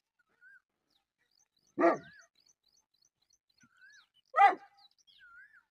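A large Pakistani bully dog (bully kutta) barks twice, two single barks about two and a half seconds apart.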